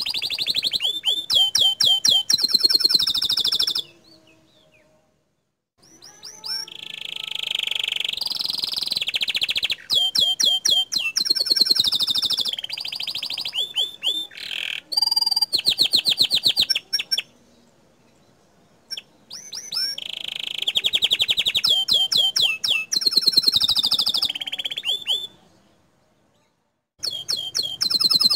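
Domestic canary singing in full song: fast trills and rolls of high, rapidly repeated notes in long phrases, broken by three short pauses.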